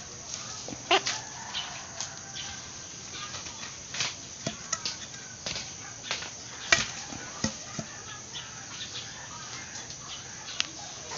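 A cloth strip rustling and snapping as it is pulled taut and wound around the end of a bamboo rod, with scattered sharp snaps, the loudest about a second in and again past the middle.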